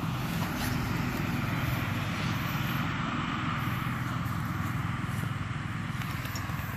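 A steady, low engine drone that runs evenly, with no rise or fall in pitch.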